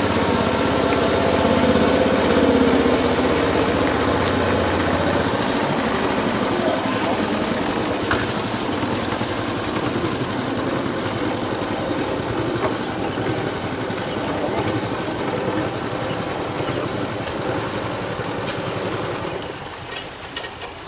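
Small river boat's engine running, a low steady drone that fades after about five seconds as the boat moves away, over a steady high-pitched insect buzz.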